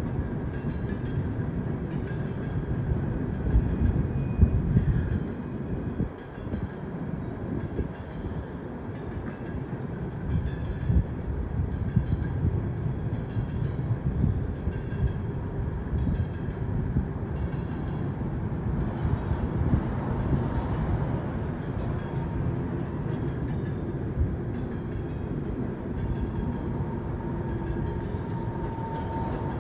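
Empty coal train cars rolling past at steady speed: a continuous low rumble with evenly repeating wheel clatter.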